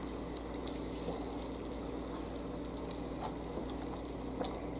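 Ground beef sizzling on a George Foreman grill's hot plate, a steady faint frying sound with scattered crackles as the fat renders out, and one sharper click near the end.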